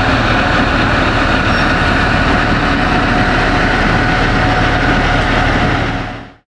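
Fire trucks' engines running as the trucks roll slowly past: a steady low rumble with a faint steady whine over it. The sound fades out near the end.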